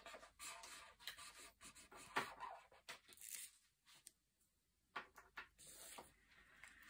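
Faint scratching of a pen writing on a paper sheet over a hard table, in short strokes with a pause near the middle.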